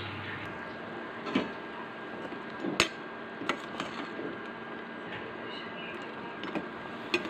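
A metal spatula knocking and clinking against the side of a stainless steel pot of boiling chicken as the meat is stirred: a handful of sharp knocks, the loudest about three seconds in, over a steady hiss.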